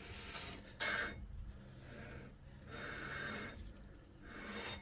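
A man breathing close to the microphone: three audible hissy breaths in and out.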